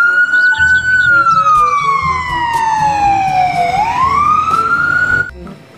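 Ambulance siren wailing: the pitch falls slowly for about three seconds, rises again, then cuts off suddenly near the end.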